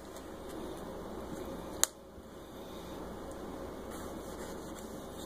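A single sharp tap about two seconds in, as a carbon-steel nakiri's edge meets a bamboo cutting board at the end of a tomato slice. It sits over faint, steady background noise.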